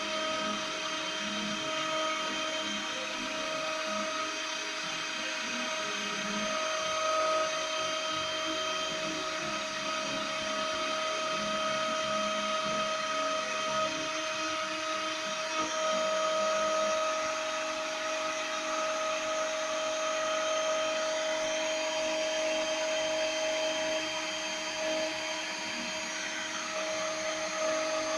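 CNC milling machine's high-speed spindle running steadily while milling a printed circuit board: a continuous high whine over a noisy hiss.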